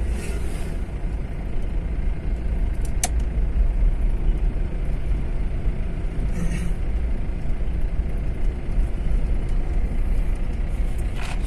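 Steady low rumble of a car's engine and tyres on a paved road, heard from inside the cabin while driving. An oncoming vehicle whooshes past right at the start, and there is a single sharp click about three seconds in.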